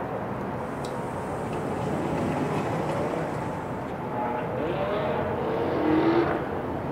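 Urban traffic noise, with a motor vehicle passing that swells loudest about six seconds in.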